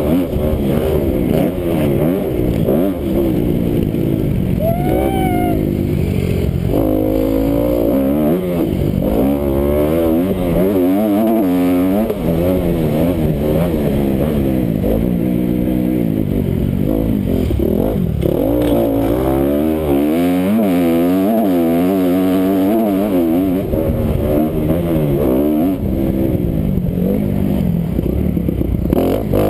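Honda motocross bike engine revving hard and dropping back over and over as the rider accelerates, shifts and brakes around a dirt track, heard close up from a camera mounted on the bike. The pitch rises and falls in quick repeated sweeps.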